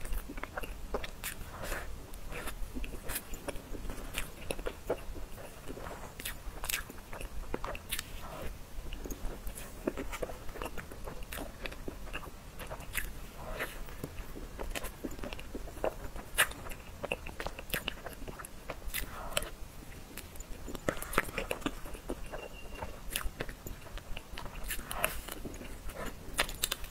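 Close-miked eating of soft tiramisu from a metal spoon: wet chewing and mouth clicks coming irregularly throughout, with the spoon scooping cream from a paper box.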